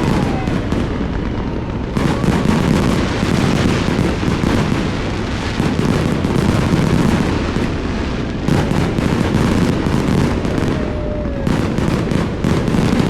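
Aerial fireworks going off in a dense, continuous barrage of booms and crackles, with no pause.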